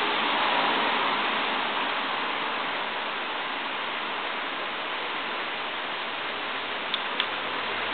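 Steady rain falling on a tiled patio, an even hiss without letup. Two short sharp ticks close together about seven seconds in.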